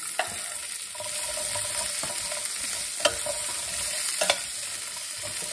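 Green beans and onion sizzling in hot oil in a stainless steel skillet while a spatula stirs them, scraping across the pan. The spatula knocks sharply against the pan three times.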